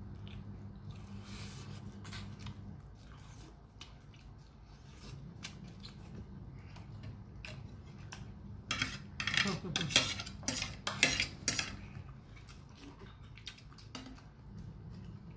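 Close-up eating sounds: a person biting and chewing food, heard as many sharp mouth clicks and smacks. They come thickest and loudest from about nine to eleven and a half seconds in, over a low steady hum.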